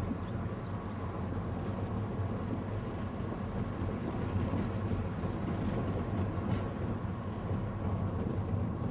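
Steady low rumble of engine and road noise, heard on board a moving vehicle.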